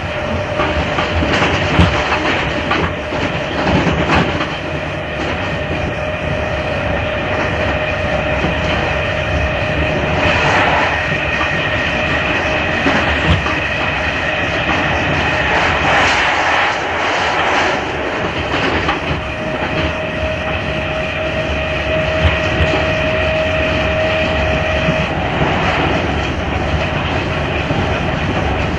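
Class 310 electric multiple unit running on the line, with steady rolling noise and a steady whine that drops away for several seconds in the middle and then returns.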